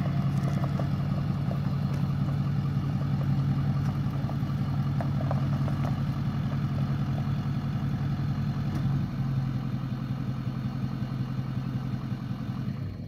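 Diesel truck engine running steadily with a low clatter.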